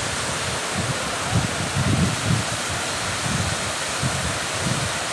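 Mountain streams rushing steadily down a rocky, gravelly slope in many small cascades, with irregular low rumbles of wind on the microphone.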